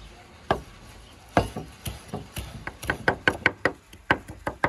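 Steel cleaver chopping purple basil on a wooden cutting board. Two separate knocks come first, then a quickening run of chops, several a second.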